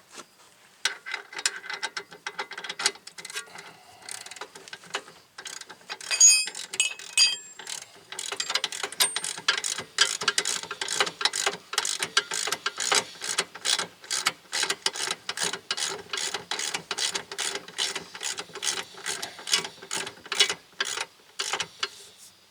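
Hand ratchet wrench clicking as hub bolts are run down: sparse clicks at first, then steady ratcheting at about three clicks a second from about eight seconds in. A few metallic clinks of tools come about six seconds in.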